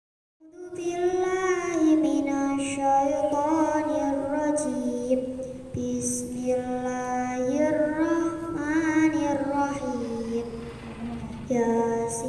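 A young girl chanting Quranic recitation in the slow, melodic murattal style, long drawn-out phrases that rise and fall in pitch. It begins about half a second in, and one phrase ends with a short pause near the end before the next begins.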